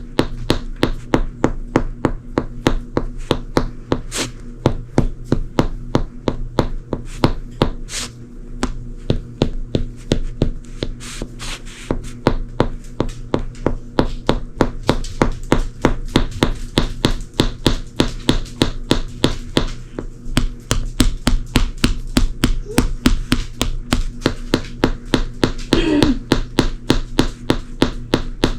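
Shoes stepping on a hardwood floor: a steady run of sharp footfalls, about three to four a second, with a short squeak near the end. A steady low hum sits underneath.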